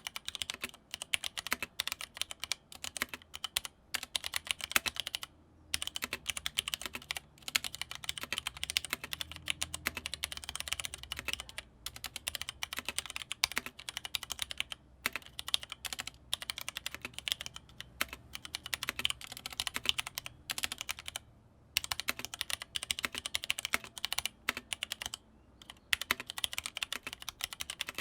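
Fast continuous typing on a Leopold FC660m mechanical keyboard with linear Cherry MX Red switches: a rapid stream of key clacks with a few brief pauses between bursts.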